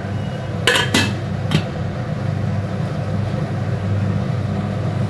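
A steel lid set over a kadai: a few sharp metal clinks within the first two seconds, over a steady low hum.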